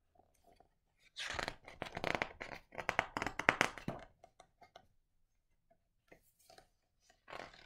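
Pages of a large picture book flipped quickly by hand: a run of paper rustling and flapping starting about a second in and lasting about three seconds, then a few light taps and one more short rustle near the end.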